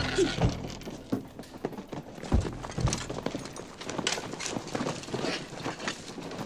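Quick footsteps and the knock and rattle of rifles and kit as a group of soldiers hurry and crouch into position, with a few low thuds.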